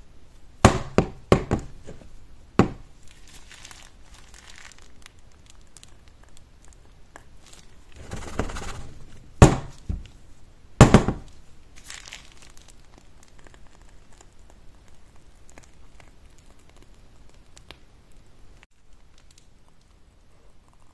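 Clear plastic jars handled with gloved hands and knocked down on a hard counter: a quick run of sharp knocks in the first few seconds, a rustle of handling about eight seconds in, then two loud knocks, after which only faint handling sounds.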